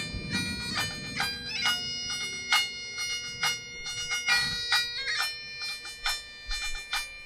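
Great Highland bagpipe played solo: steady drones sound under the chanter's melody, which changes note every fraction of a second and is broken by many quick grace notes.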